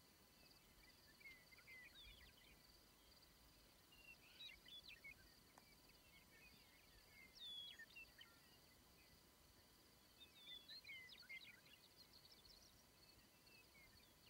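Faint songbird chirping in short phrases every few seconds over a steady high insect trill.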